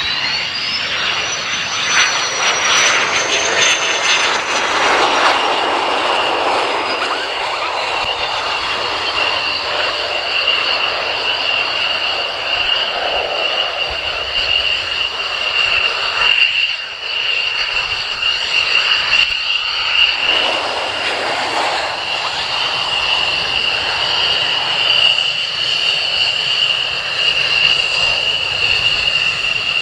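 F-16 fighter jet's single turbofan engine on landing approach and rollout. A high engine whine climbs and then falls in pitch over the first several seconds as the jet passes, over a steady jet noise with a constant high whine.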